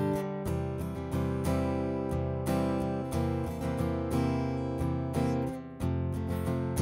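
Acoustic guitar strumming chords in a steady rhythm, about two strokes a second, as the intro of a recorded song.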